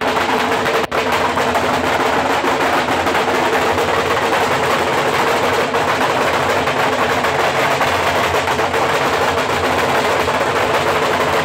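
Several Lambeg drums beaten together with thin canes, making a loud, continuous rolling rattle with no single strokes standing out.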